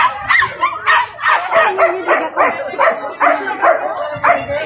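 A dog barking and yelping rapidly, about three short calls a second without a break.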